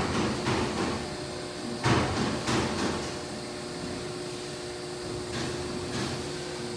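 Steady mechanical hum holding one low tone, with a few short knocks at the start and again around two to three seconds in.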